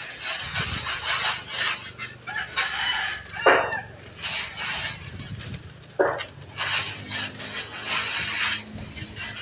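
Air spray gun hissing in repeated passes of about half a second to two seconds as paint is sprayed onto a car hood. A chicken calls twice, briefly and loudly, in the middle.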